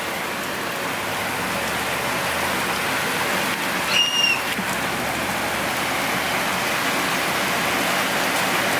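Steady rain falling on a wooden porch deck.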